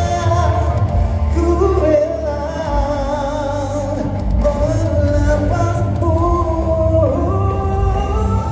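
A male vocalist singing a song live into a microphone over amplified instrumental backing, holding long, sliding notes.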